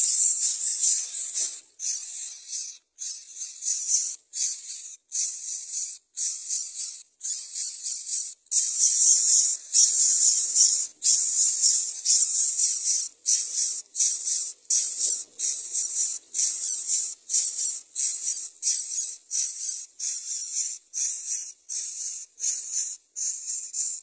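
Greater coucal nestlings making harsh, raspy hissing begging calls for food. The calls come in a rapid series of short bursts, about one a second, and stop abruptly near the end.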